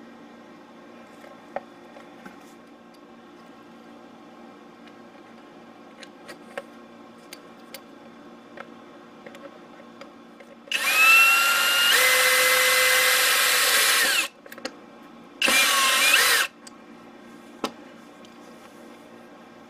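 Power drill running twice: a burst of about three and a half seconds whose whine drops in pitch about a second in, then a shorter burst of about a second. Faint clicks and taps of handling come before and after.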